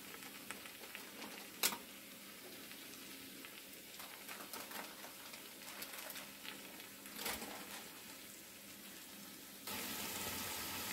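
Chicken and onions faintly sizzling in an enamelled cast-iron pot, with two sharp clicks; the sizzle gets louder near the end.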